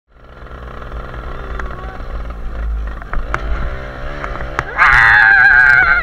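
Motorcycle engine running as the bike rides along, fading in at the start. A loud, wavering pitched sound joins it near the end.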